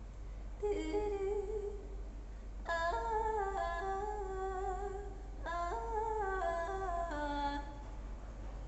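A woman singing solo and unaccompanied: three wordless phrases of vocal riffing, the pitch held on notes and jumping quickly between them, echoing in a reverberant room.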